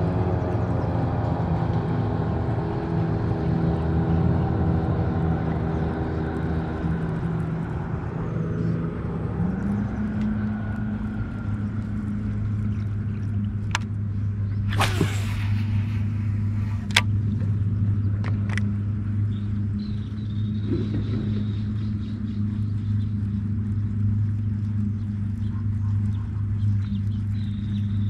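An engine running steadily with a low hum; its pitch steps up about ten seconds in. A few sharp clicks come around the middle.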